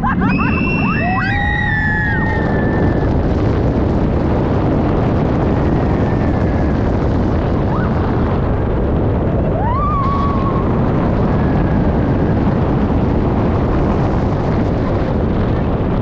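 Heavy wind rush on the microphone and the roar of the Orion steel giga coaster's train running at speed. Riders scream in short rising and falling cries near the start, and one more yell comes about ten seconds in.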